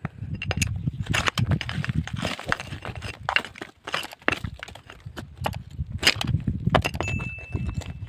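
Rapid, irregular sharp knocks and cracks of rock striking rock over a low rumble.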